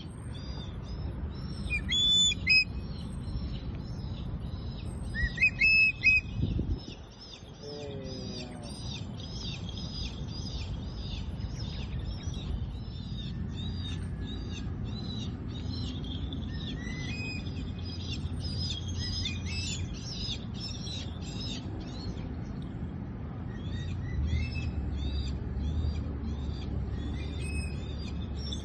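Birds chirping continuously in many short, rapidly repeated high chirps, with a few louder calls about two seconds and six seconds in, over a steady low rumble.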